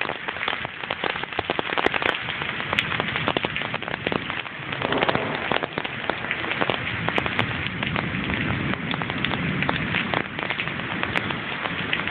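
Steady rain falling on a concrete patio: a dense run of drops splashing on the wet surface.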